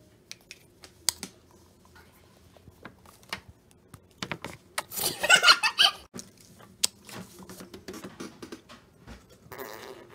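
Plastic squeeze bottle of acrylic craft paint being handled and squeezed onto a plastic palette: scattered clicks and taps, then a rough, sputtering squirt lasting over a second about four to six seconds in as paint and air push out of the nozzle.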